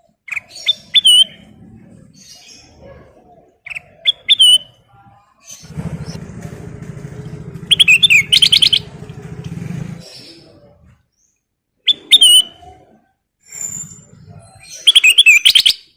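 A kutilang emas bulbul singing in loud bursts of quick, bright chirping phrases, five times over, with short gaps between them. A low droning rumble runs under the song in the middle.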